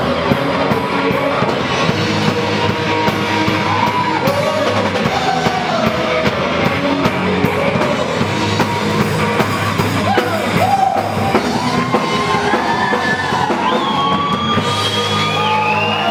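Loud live gospel music with a steady beat and singing, and voices yelling and whooping over it in the last few seconds.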